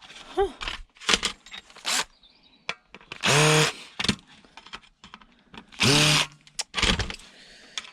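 Power drill running in two short bursts of about half a second each, the motor spinning up at the start of each, as it drives screws out of an electronic device's casing. Short clatters of handling come between the bursts.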